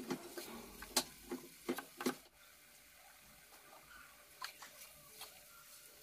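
A spatula stirring spice-coated gooseberry pickle in a nonstick frying pan: soft squishing scrapes and clicks, stopping about two seconds in, then a few faint clicks.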